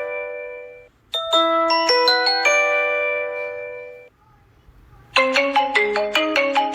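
Two smartphone ringtones. A chime-like ringtone plays a quick run of pitched notes that ends on a held ringing chord and fades. After a short silence about four seconds in, a different ringtone starts a second later with a fast marimba-like melody of about five notes a second.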